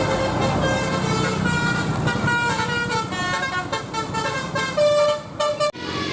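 Bus musical air horn of the 'telolet basuri' kind playing a quick tune of short stepped notes, over the low rumble of a running engine. Near the end the sound cuts off abruptly and another horn tone follows.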